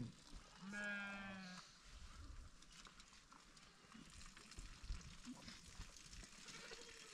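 One bleat, about a second long, from the penned flock of sheep and goats, followed by faint scattered sounds of the animals.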